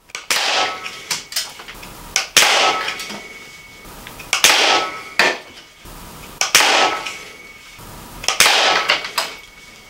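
Hatsan Striker 1000X .25 calibre break-barrel spring-piston air rifle firing five shots about two seconds apart, each a sharp report with a short ringing tail, with smaller clicks between shots. The rifle is still dieseling while it breaks in.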